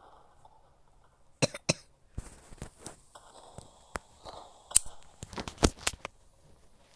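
A person with a cold coughing in short, sharp bursts: two coughs about a second and a half in, then a single one and a quick cluster in the second half.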